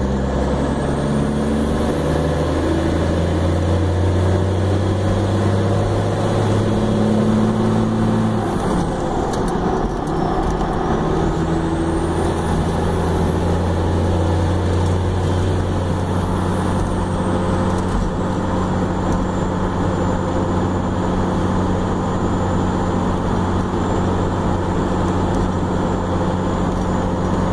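Dodge Ram 2500's Cummins straight-six turbo diesel running at highway speed with a steady low drone. A thin high turbo whistle climbs, falls away about eight seconds in, climbs again and then settles at a lower steady pitch.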